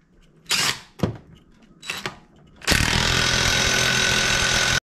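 Power tool running a nut down on a Yamaha Banshee two-stroke engine during reassembly: a few short clatters and a click, then a steady run of about two seconds that cuts off abruptly near the end.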